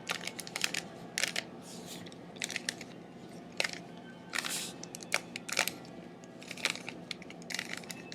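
Plastic Rubik's Cube being twisted through a sequence of turns: short, irregular clicking and rasping as the layers are rotated one after another.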